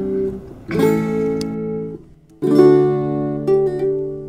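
Acoustic guitar music: strummed chords ringing out, with a brief break about two seconds in before the strumming resumes.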